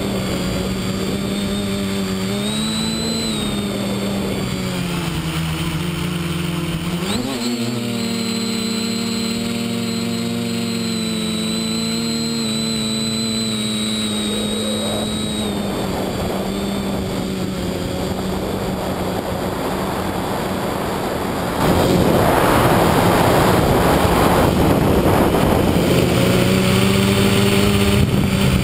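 Quadcopter's electric motors and propellers humming steadily as heard from on board, the pitch shifting with the throttle and gliding sharply about seven seconds in. About 21 seconds in, a louder rush of air noise comes in over the hum.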